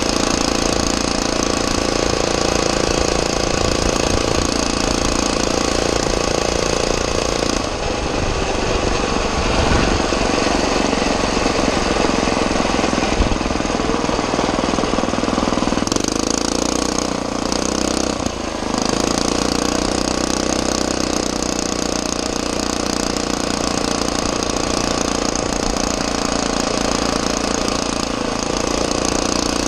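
Predator 6.5 hp 212cc single-cylinder four-stroke engine on a motorized bicycle running steadily under load while riding. The engine note shifts briefly about eight seconds in and again around sixteen to eighteen seconds.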